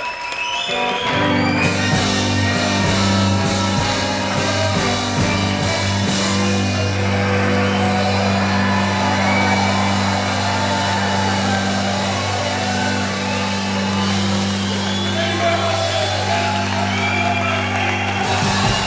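Live blues band (archtop guitar, upright bass, saxophone, drums) holding one long closing chord under a cymbal wash, with shouts and whoops over it; the whole band cuts off together near the end, ending the song.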